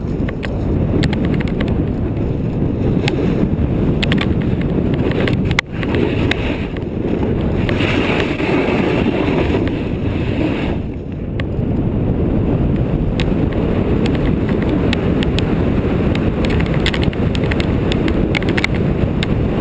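Strong wind buffeting the microphone: a loud, steady rumble with scattered clicks, briefly dropping off about five and a half seconds in and easing again about eleven seconds in.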